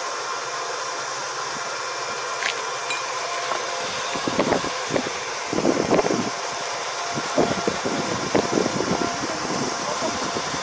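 Steady whirring hum of a running machine, with a single light tap about two and a half seconds in.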